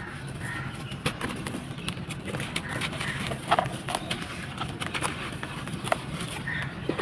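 Dry sand-cement balls being crushed and crumbled in a tub: irregular gritty crunches and crackles, the sharpest snap about halfway through.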